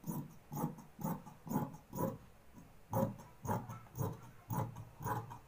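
Large dressmaking shears snipping through cloth in a steady run of cuts, about two a second, with a brief pause a little past halfway.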